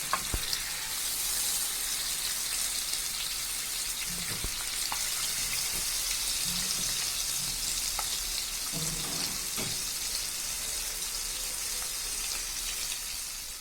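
Masala-coated boiled eggs shallow-frying in a little oil in a pan, a steady sizzle with a few faint ticks.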